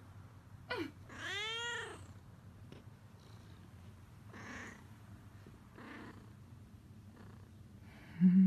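Domestic cat meowing: a short sharp call, then one longer meow that rises and falls in pitch, followed by a few faint softer sounds. Near the end, a brief loud low-pitched sound.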